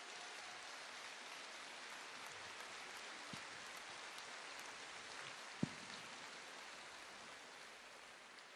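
Faint audience applause, an even patter of many hands that slowly dies away, with a single knock about five and a half seconds in, typical of a handheld microphone being handled.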